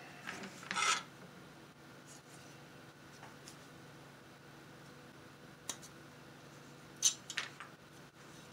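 Plastic model-kit sprue rustling as it is handled, about a second in. Near the end, small wire clippers give a sharp snip as they cut a part off the sprue, followed by a few small clicks.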